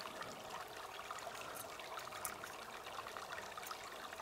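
Faint, steady trickle of running water, with a few light clicks.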